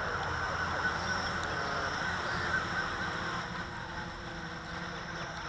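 Blade 350 QX quadcopter hovering close by, its four electric motors and propellers making a steady buzzing hum whose pitches drift slightly as it holds and lowers its height.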